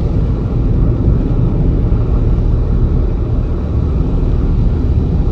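Car cabin noise while driving: a steady low rumble of the engine and the tyres on a wet road.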